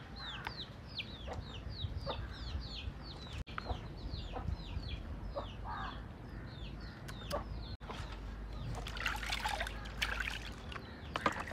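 Chickens in the yard: a rapid run of high, falling peeps, about four a second, with a few lower clucks. The peeping stops about seven seconds in, and a rustling, scraping noise follows near the end.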